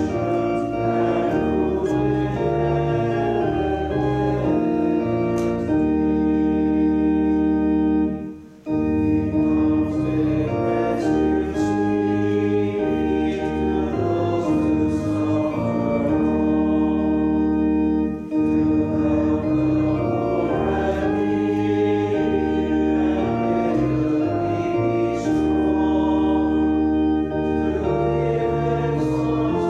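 Church organ playing a hymn in sustained chords, with a congregation singing along. The music breaks off briefly about eight seconds in and dips again about eighteen seconds in, between phrases.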